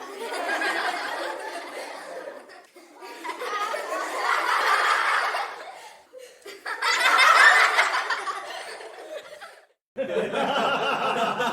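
Recorded laughter sound effects played one after another: three bursts of laughter separated by short pauses, then a different, duller-sounding laugh starting about ten seconds in.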